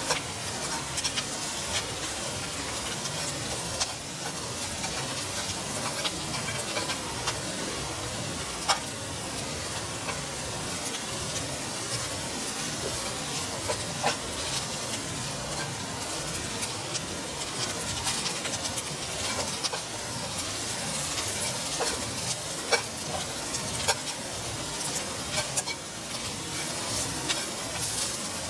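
Mushrooms and onion sizzling in a frying pan as they are stirred with wooden chopsticks: a steady frying hiss with frequent small clicks and taps of the chopsticks against the pan.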